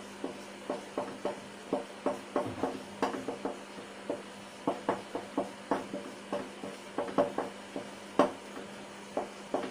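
Marker pen on a whiteboard as words are written, giving short irregular taps and strokes, about two or three a second.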